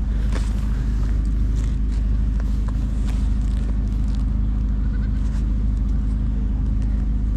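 Steady low engine rumble that does not change, like a motor running at idle.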